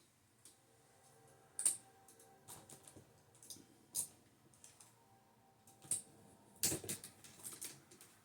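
Irregular light clicks and taps from fishing rods and reels being handled. The sharpest click comes about two seconds in, and a quick cluster of clicks follows near the end.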